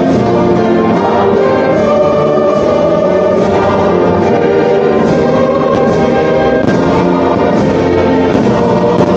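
Orchestral music with brass and choir, the soundtrack of a fireworks show played loud and steady over outdoor loudspeakers, with a few faint sharp cracks in the second half.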